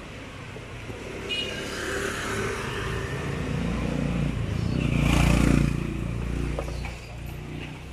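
A motor vehicle passing close by on the street, its engine and road noise building to a peak about five seconds in, then fading.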